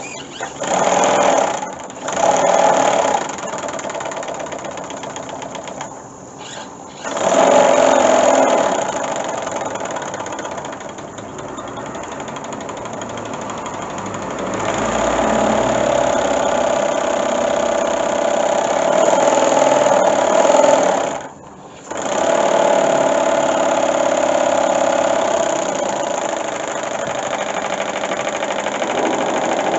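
Small oscillating (wobbler) two-cylinder steam engine, horizontally opposed and single-acting, of 5 cc, running fast on steam from a propane-fired boiler. It runs steadily, with a few short breaks in the sound.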